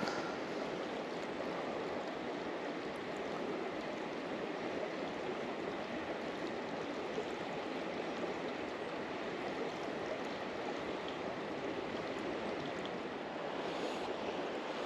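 River water running, a steady even rushing.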